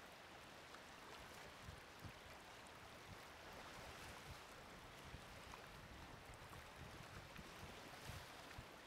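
Faint, steady rushing and lapping of choppy river water, with a few soft clicks in it.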